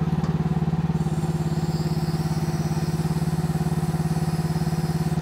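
KYMRON YH14 mini excavator's small gasoline engine idling steadily, an even pulsing note, while the machine digs at idle throttle.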